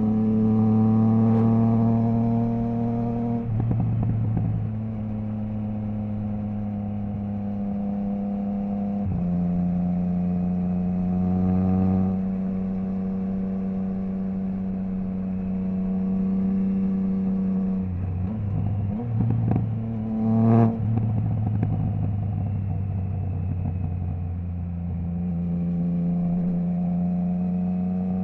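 Triumph Trident 660's inline three-cylinder engine through a Zard stainless full exhaust with the baffle removed, running steadily under way. Its pitch steps down about 4 and 9 seconds in as it changes gear. Around 18 to 21 seconds in the note breaks up into quick revs and sharp cracks, typical of downshifts with the quickshifter's auto-blipper.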